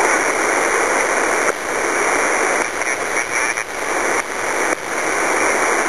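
Steady radio static: hiss from a shortwave radio receiver on an open channel between transmissions from the distant station, dipping briefly a few times.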